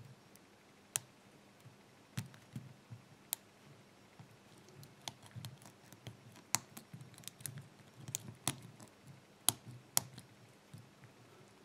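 Small irregular metallic clicks and ticks of a lock pick and tension tool working the pins of a BRINKS 5-pin padlock, coming more often around the middle.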